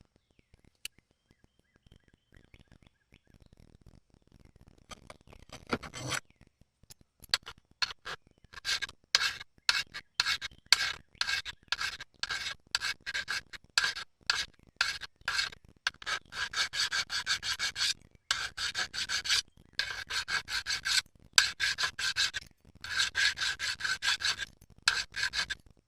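Quick, repeated rasping and rubbing strokes, faint at first and growing steady and louder about eight seconds in, with brief pauses between runs of strokes.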